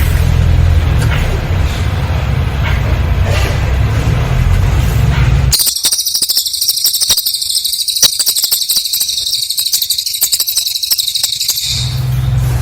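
A cililin bird's song: a rapid, very high-pitched continuous trill lasting about six seconds, starting about halfway in and stopping abruptly. Before it there is a steady low hum.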